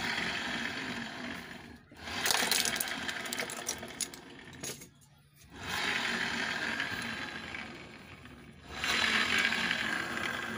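Yamaha Mio Sporty scooter engine revved in several bursts with the rear wheel spinning free, with a metallic rattling clatter from the transmission: the sign of a broken primary gear in the final drive.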